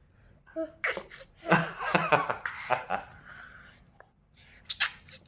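A young child laughing in a string of short, breathy bursts lasting a couple of seconds.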